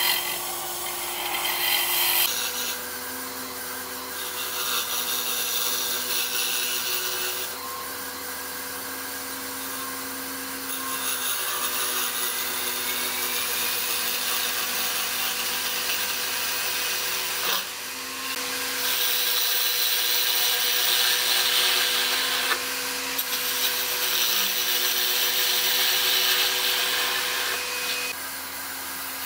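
Wood lathe spinning a small wooden disc while a hand-held turning tool cuts its face: a hissing scrape over the steady hum of the machine. The cutting sound swells and eases in stretches of several seconds and is loudest about two-thirds of the way through.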